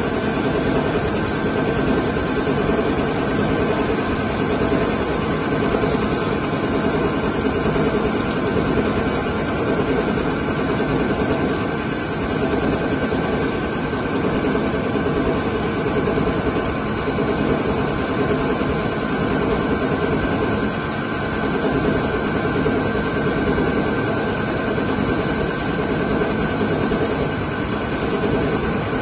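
CNC lathe turning a metal workpiece under flood coolant: the spindle and cut make a steady mechanical drone with a few faint held tones, over the hiss of coolant spraying inside the enclosure.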